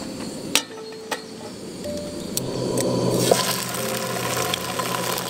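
A frying pan is set down on a Trangia storm cooker's metal pan supports with two sharp clinks, about half a second and a second in. From about three seconds in, tofu in hot oil starts to sizzle, a steady hiss.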